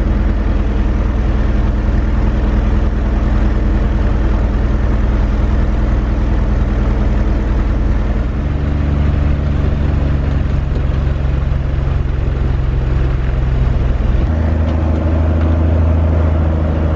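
Cirrus SR20's six-cylinder Continental IO-360 engine and propeller running at low power, heard inside the cabin: a steady drone whose pitch changes about eight seconds in and again near the end. The engine is freshly overhauled.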